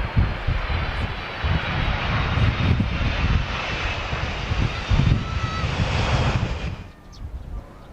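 Boeing 767 jet engines on a landing, a loud, steady jet roar with heavy gusty rumbling from strong wind on the microphone. The sound drops away abruptly about seven seconds in.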